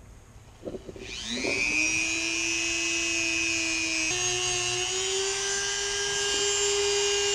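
Dremel rotary tool fitted with a wire brush, spinning up about a second in to a steady high whine while brushing old paint off a plastic jerkbait. Its pitch drops slightly and settles about four seconds in.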